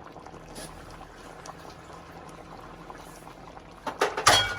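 Pot of pork hock kare-kare with vegetables boiling steadily. About four seconds in, two loud clanks, the second followed by a brief ringing note.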